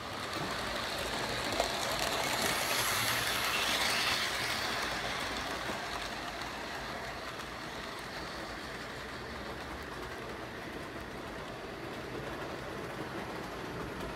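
HO scale model train rolling past, its wheels running on the track with a steady rattle that is loudest a few seconds in and then eases off as the cars move away. A single sharp click comes about a second and a half in.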